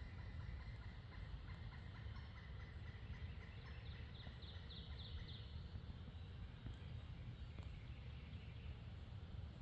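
Outdoor ambience: a steady low rumble with a bird calling, a quick run of about six high chirps about four seconds in.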